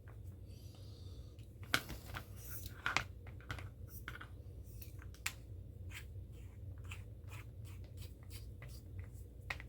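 Small clicks, ticks and scrapes of hands handling a cable connector and tools on a workbench, irregular throughout, with a steady low hum underneath.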